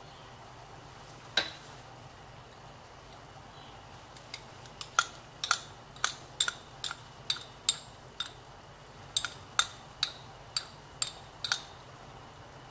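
A metal spoon clinking against a container while thick red pepper paste is scooped into the pan: a single clink about a second in, then a run of about fifteen quick, irregular sharp clinks with brief ringing over several seconds.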